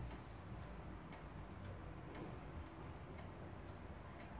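New Haven antique pendulum wall clock ticking steadily, about one tick a second.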